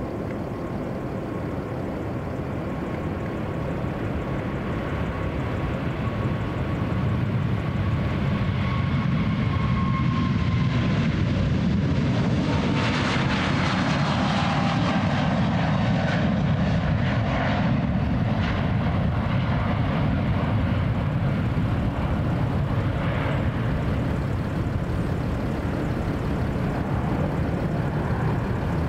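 Qatar Boeing 777's twin GE90 jet engines passing by: the rumble swells, and the engine whine drops in pitch as the aircraft goes past about 10 to 13 seconds in, followed by a steady heavy rumble.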